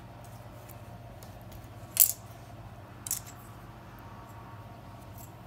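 Two short, sharp clicks about a second apart, the second softer: a plastic knife tapping the stone countertop as it cuts salt dough around a paper template.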